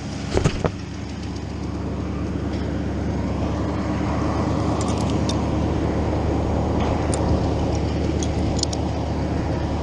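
A small engine idling steadily, with a few light metallic clicks and clinks over it.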